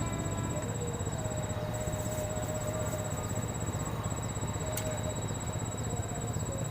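A continuous high-pitched insect trill, cricket-like, over a steady low rumble of outdoor background noise.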